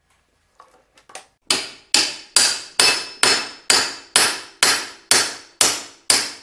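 Hammer blows on a steel pipe driven down through a Honda Today scooter's steering head pipe, knocking out the lower steering-bearing ball race. About a dozen even blows, a little over two a second, start about a second and a half in, and each one rings briefly.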